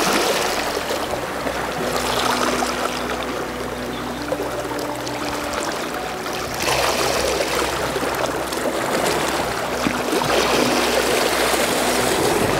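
Seawater lapping and washing against shoreline rocks, a continuous splashing wash that swells and eases.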